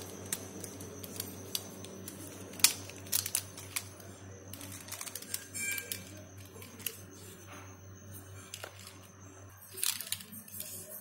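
Scattered sharp clicks and taps from a plastic-and-metal 8-in-1 folding multi-tool being handled, its arms and parts snapping, loudest about two and a half seconds in and again in a cluster near the end, over a steady low hum.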